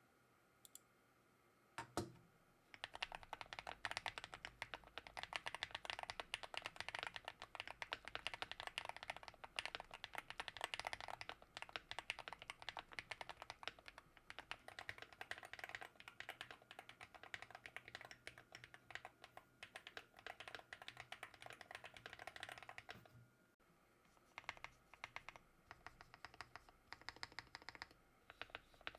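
Typing on a custom keyboard: GT-80 case with a Wooting 80HE PCB, FR4 plate, Gateron Jade switches and Fried Shrimp foam. A single knock about two seconds in, then fast continuous keystrokes, a brief pause past the two-thirds mark, and sparser typing near the end.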